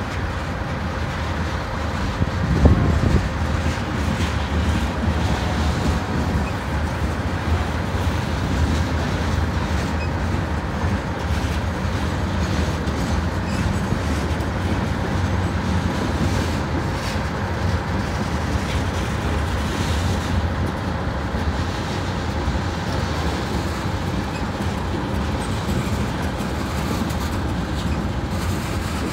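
Freight train of covered hopper cars rolling past steadily, wheels running on the rails, with one brief louder burst about three seconds in.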